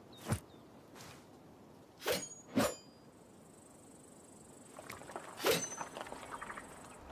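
Hunting knife being handled, giving isolated sharp clicks and knocks. There is one click just after the start, two about half a second apart around two seconds in, and another amid light ticking about five and a half seconds in. A faint high whine runs through the second half.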